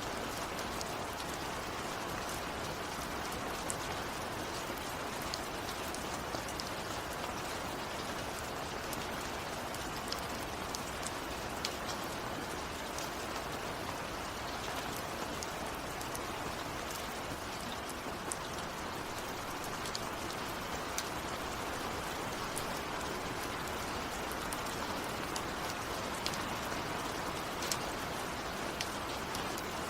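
Steady rain falling, with scattered sharp ticks of individual drops striking close by. There is no thunder.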